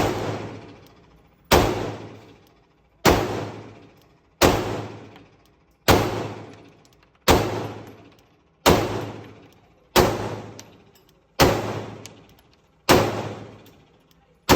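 9mm Glock 19 pistol with a Radian Ramjet compensator, fired in slow, evenly paced single shots, about one every second and a half, eleven in all. Each shot is followed by a ringing decay that lasts about a second.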